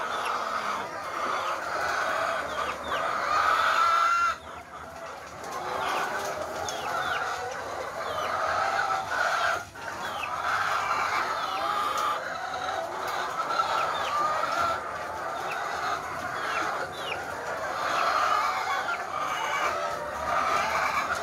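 A large flock of caged laying hens clucking and calling, many voices overlapping without a break.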